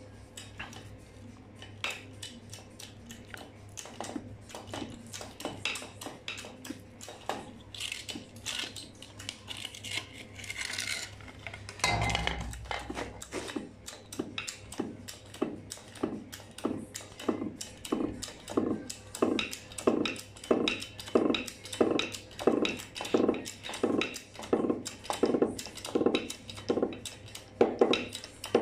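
Hand-worked hydraulic press or jack pressing a bushing in, clinking metallically with each pump stroke. The strokes settle into an even rhythm of about one a second and grow louder toward the end as the bushing tightens. There is a heavier thud about twelve seconds in.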